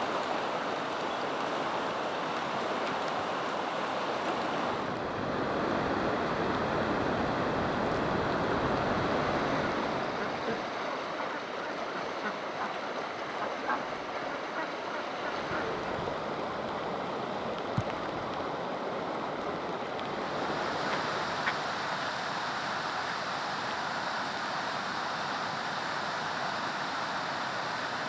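Steady rushing of running water in rain, shifting in tone a few times, with a few faint taps standing out.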